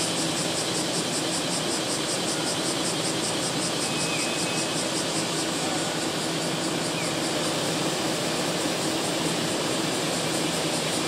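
Street ambience: a steady hum of engines and road traffic, with a high, evenly pulsing hiss above it and a couple of faint short chirps.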